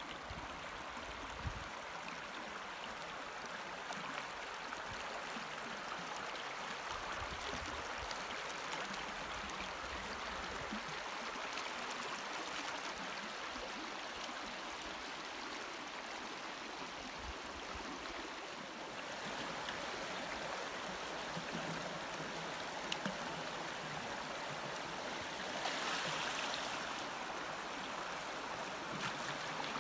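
Shallow, fast river running over stones: a steady rush of water, louder for a moment near the end.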